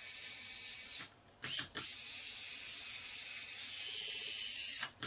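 Hobby servos of a 3D-printed robot gripper running as the fingers open and close: a steady, high-pitched gear whir. It breaks off briefly about a second in and cuts off suddenly near the end.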